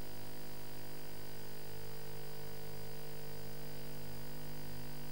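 Steady electrical hum and buzz with hiss on a broadcast audio feed, with no speech or other events.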